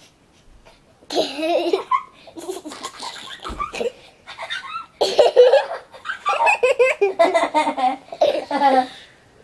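A young girl laughing in bouts of quick, repeated giggles, starting about a second in and loudest in the second half.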